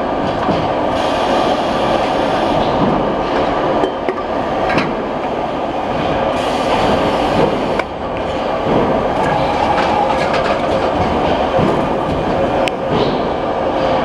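A pot-rim trimming and curling machine running on a metal pot. It makes a loud, steady mechanical rattle and hum, with scattered sharp clicks of metal.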